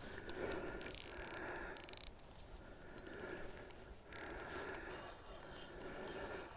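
Faint handling of a spinning reel and rod, with a few short runs of rapid clicking from the reel while a fish is on the line.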